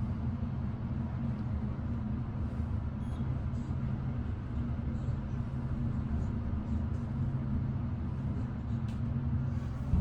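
Otis elevator cab travelling between floors: a steady low rumble and hum.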